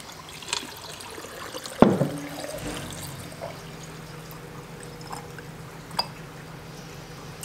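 Apple cider vinegar poured from a plastic gallon jug into a glass jar of rusty sockets, a steady pour that fills the jar. A sharp knock about two seconds in, as the pour gets going, and a short click near the end.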